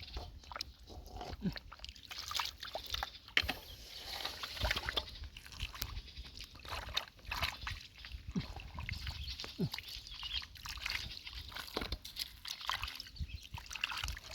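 Hands digging and groping in wet mud for clams: irregular squelches, slops and clicks, with a few short sucking sounds that slide down in pitch.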